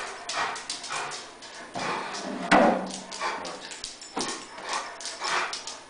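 Rhodesian Ridgeback, excited at the prospect of a walk, making a quick run of short breathy and scuffling sounds, with one loud thump about two and a half seconds in.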